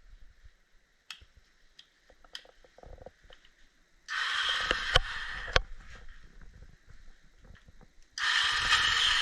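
Electric starter of a Zongshen ZS190 engine whirring in two bursts of about a second and a half, the second starting near the end, without cranking the engine: the starter clutch is slipping because of worn rollers in the flywheel. A few light clicks come before the first burst.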